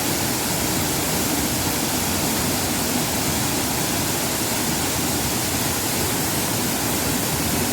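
Waterfall's steady rush of falling water, an even, unbroken roar.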